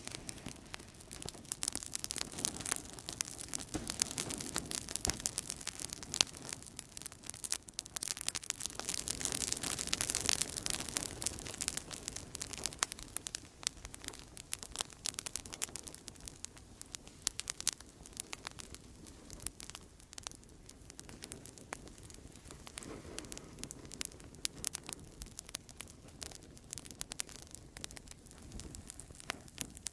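Outdoor campfire burning, the wood crackling and popping in dense sharp snaps over a soft hiss, busiest in the first half and sparser later.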